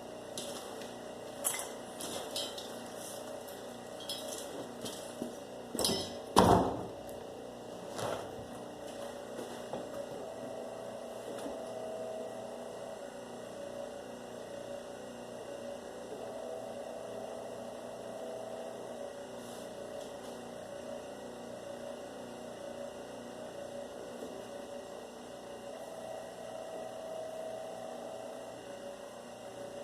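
Several sharp metallic clinks and knocks in the first eight seconds, the loudest about six and a half seconds in, then only a steady hum for the rest of the time.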